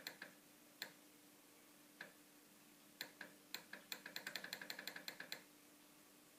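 Stepper motor of a homemade automatic powder dispenser turning its feeder in short clicking steps as it trickles powder onto a beam scale's pan near the target charge. First a few single clicks, then a quick run of about eight clicks a second for nearly two seconds, over a faint steady hum.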